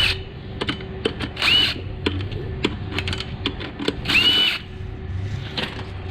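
A power tool's motor spins up in three short bursts, each a rising whine that levels off: bolts are being run out during an engine teardown. Sharp metallic clicks and knocks of tools and parts fall between the bursts.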